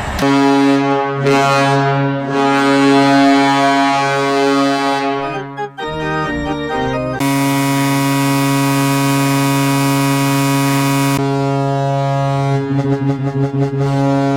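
NHL arena goal horns: a deep, steady air horn sounding with a noisy wash over it. About six seconds in comes a short stretch of quickly changing notes, then another steady horn starts about a second later and pulses on and off near the end.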